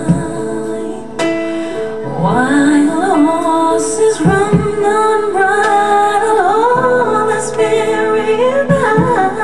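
Music: a song with a woman singing long, gliding notes over a steady instrumental accompaniment.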